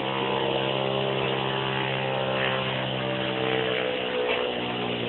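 Steady mechanical hum with a low droning pitch and many overtones, shifting slightly in pitch near the end.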